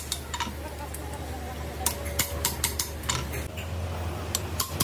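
Light metal clicks and clinks of tools and parts being handled during cylinder head work. They come irregularly, a few at a time, over a steady low hum that shifts about three and a half seconds in.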